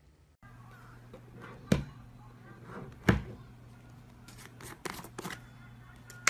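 Slime being handled, with two sharp slaps or pops about a second and a half apart, then a few softer quick clicks, over a steady low hum.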